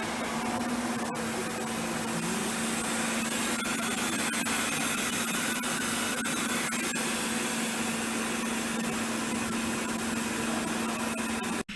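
Steady machine hum with an even hiss, holding one pitch, cutting off abruptly at the very end.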